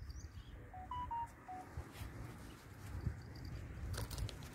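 Wind rumbling on the microphone, with a quick run of four or five short, clear whistle-like notes about a second in and a few faint clicks near the end.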